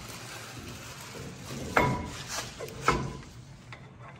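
Metal brake caliper clinking against the rotor and knuckle as it is slipped into place: two sharp metallic clinks with a brief ring, about a second apart, and a lighter knock between them.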